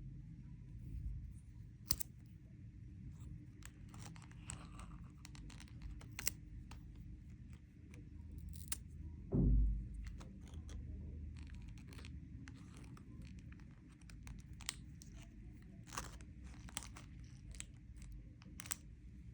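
Candy wrappers and plastic packaging being handled and torn open: scattered crackles and sharp ticks, with one heavy thump about nine seconds in.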